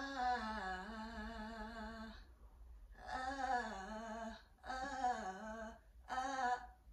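A woman singing wordless vocal runs, her pitch stepping quickly up and down between notes. A phrase of about two seconds comes first, then three shorter ones. The first is a 'before' take and the later ones an 'after' take of the same riff-and-run exercise.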